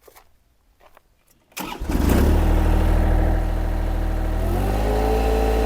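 Mini skid steer engine starting: it catches about a second and a half in and settles into a steady run. Near the end the engine note steps up slightly.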